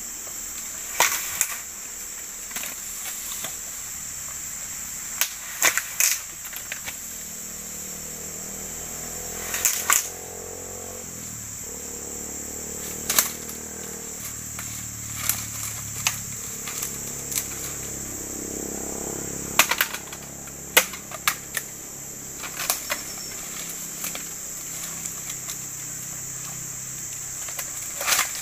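Bamboo culm being chopped: irregular sharp strikes, about fifteen, some in quick pairs, over a steady high insect buzz.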